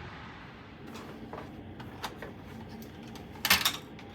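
A few light clicks and knocks from objects being handled, with a sharper clatter about three and a half seconds in, over a low steady background hum.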